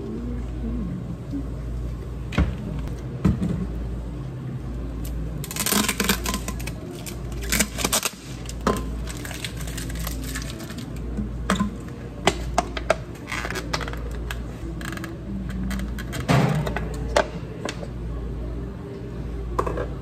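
Cafe dishes and utensils clinking and clattering in scattered clicks and knocks, busiest about six seconds in and again around twelve to fourteen seconds, over a steady low hum.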